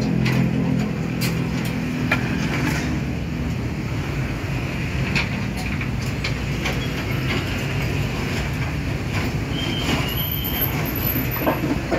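Diesel engine of a mini excavator or dump truck running steadily, with scattered sharp knocks and clunks through it.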